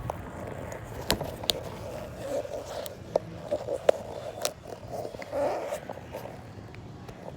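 Handling noise: scattered sharp clicks and knocks over irregular scraping and rustling, with the loudest click a little under four seconds in.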